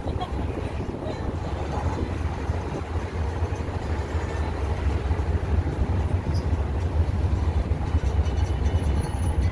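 Steady low rumble of a tourist road train in motion, heard on board one of its open carriages: the drone of the towing vehicle's engine mixed with road and carriage noise.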